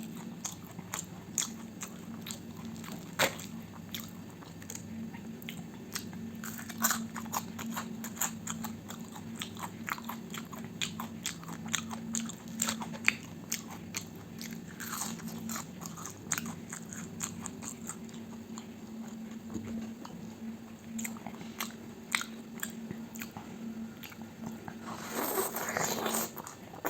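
Close-miked eating sounds: biting and chewing breakfast food, with many small crunches and wet mouth clicks, a louder stretch of crunching near the end, over a low steady hum.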